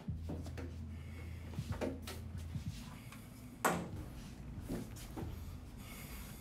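A toilet cubicle door being unlatched and pushed open by its lever handle: a few light clicks and knocks, with one sharper knock a little past the middle.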